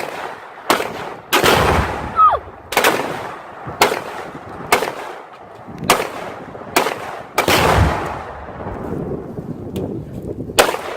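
Rifle fire from several shooters, about a dozen shots at uneven intervals. Two heavier booms, about a second and a half in and past the middle, roll on with a deep rumble: Tannerite jugs detonating.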